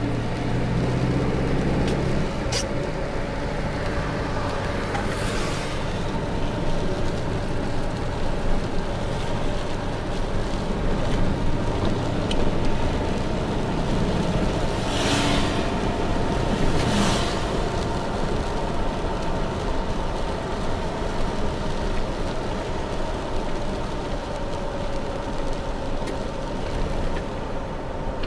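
Car cabin noise while driving on a rain-soaked road: a steady hiss of tyres on wet pavement with a low running drone, and a few brief louder swishes, two of them close together about halfway through.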